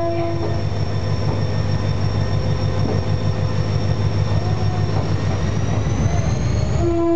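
GM diesel-electric locomotive pulling away: its horn chord cuts off about half a second in and sounds again near the end, with the diesel engine's low pulsing rumble between. A faint high whine rises shortly before the second horn blast.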